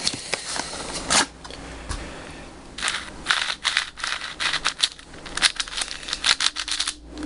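Brand-new MoYu WeiSu 4x4 plastic speed cube being slid out of its cardboard box, with a sharp snap about a second in. Then its layers click and rattle unevenly as they are turned by hand. The cube is straight from the box, with little or no lubricant as the owner suspects.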